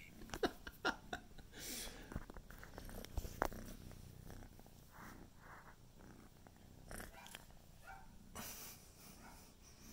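A kitten purring faintly, with a few sharp taps and knocks in the first few seconds as the phone recording it is moved about on the tile floor.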